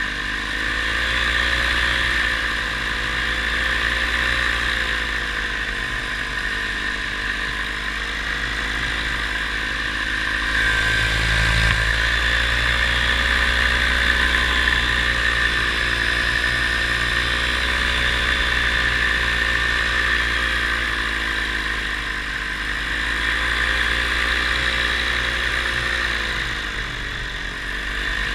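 Paramotor engine and propeller running steadily in flight, its pitch wavering gently up and down every few seconds, over a constant rush of wind.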